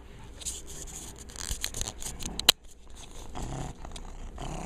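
Domestic cat purring close to the microphone, a low steady rumble under rustling and scratching from fur being handled, with one sharp click about two and a half seconds in.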